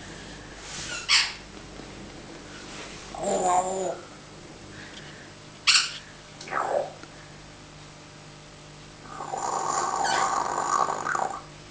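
Pet parrot making a string of odd calls: short sharp squawks, a wavering call, a falling call, and near the end a long, rough, noisy sound lasting about two seconds.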